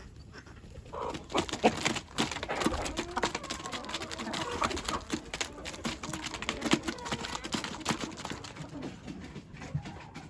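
Farm poultry calling, several birds at once, over a busy run of clicks and rustling that starts about a second in and eases off near the end.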